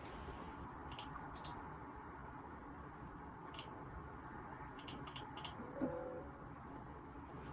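Scattered clicks of computer keyboard keys and a mouse, single ones at first and then a quick run of about five, over the steady hiss of a phone microphone.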